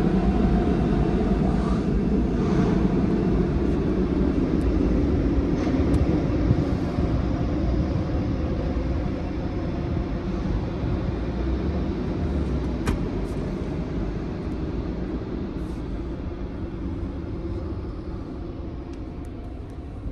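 Car wash machinery running with a steady rumble and hiss, heard from inside a car and fading gradually as the car pulls away from the tunnel exit.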